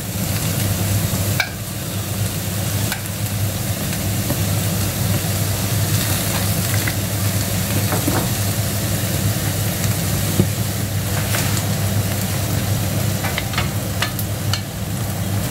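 Diced onion, garlic and red bell pepper sizzling steadily in butter and oil in a stainless steel frying pan, with a wooden spatula scraping and stirring in the pan now and then. A steady low hum runs underneath.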